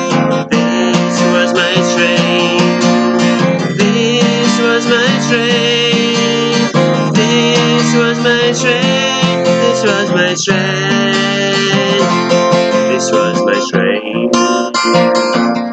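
Acoustic guitar strummed steadily, an instrumental outro to a singer-songwriter's song.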